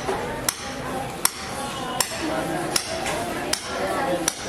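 Sharp, slightly ringing metallic taps at a very even pace, about one every three-quarters of a second (six strikes), over a murmur of voices.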